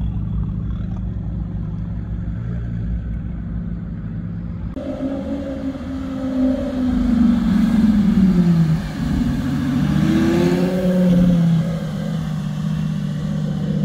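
Lamborghini Gallardo's V10 engine revving as the car pulls away, its pitch climbing and dropping back twice, with a brief dip in between, and loudest in the middle. Before that, for the first few seconds, a steady low engine rumble from another sports car driving off.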